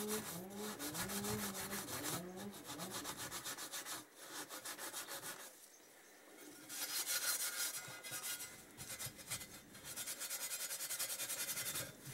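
Red Scotch-Brite abrasive pad scrubbed in quick back-and-forth strokes over the finned cast aluminium sump of a Kawasaki Z1000J engine, taking off residual paint and grime to key the surface for paint. There is a brief pause about halfway through.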